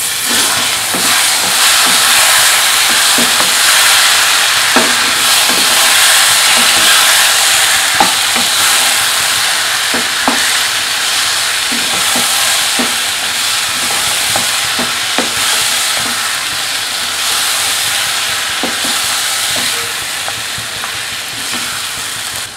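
Chicken and tomato masala sizzling in hot oil in a non-stick frying pan while a wooden spatula stirs it, with light scrapes and irregular knocks of the spatula against the pan. The sizzle eases off a little near the end.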